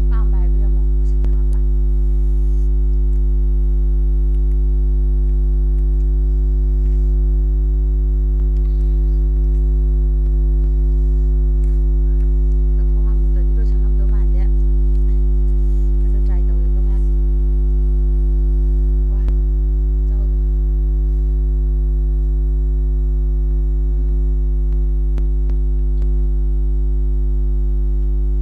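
A loud, steady electronic hum: a strong low drone with several constant higher tones stacked above it, an audio recording fault that drowns out nearly everything else. Faint short clicks and brief chirps show through now and then.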